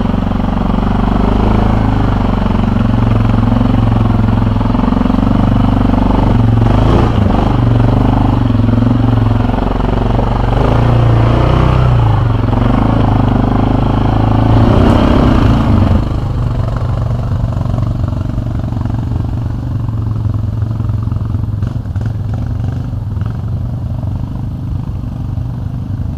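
Quad bike (ATV) engine running under load, revving up and down as the machine climbs a rutted, muddy trail. About sixteen seconds in it gives way to a quieter, rough low rumble.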